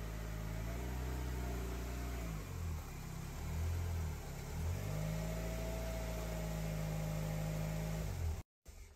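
1993 Mazda Miata's 1.6-litre four-cylinder engine idling, its speed rising and falling briefly in the middle. The sound stops abruptly near the end.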